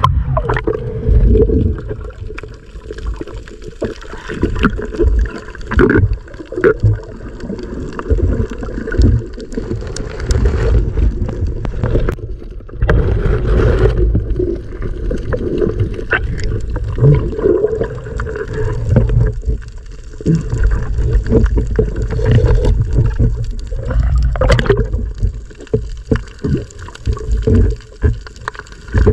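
Seawater sloshing and gurgling, heard muffled from under the surface as a swimmer moves through it, with scattered knocks and clicks.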